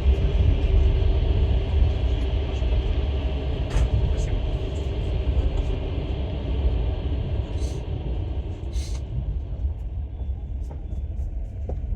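Passenger train running along the rails, heard from inside the carriage: a steady low rumble of wheels on track with scattered sharp clicks and knocks, easing slightly in loudness towards the end.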